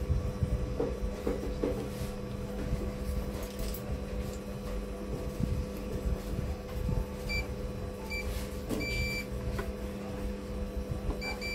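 Digital multimeter's continuity beeper chirping briefly three times, then sounding steadily near the end as the probes find continuity: the water-corroded line is shorted. A steady low hum runs underneath.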